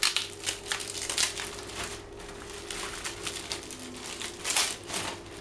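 Thin plastic packaging bag crinkling and rustling in irregular bursts as hands open it and work it off its contents. It is loudest at the start, about a second in and again about four and a half seconds in.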